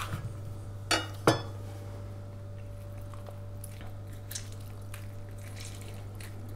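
Knife and lemon handling on a wooden chopping board: two sharp knocks about a second in as the chef's knife and the cut lemon are put down, then faint small squelches as a lemon half is squeezed by hand over a glass dish.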